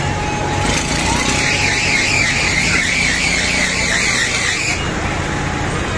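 Riders on a fairground swinging ride screaming together for about five seconds, a wavering shriek that stops abruptly near the end, over the ride's steady low machinery hum.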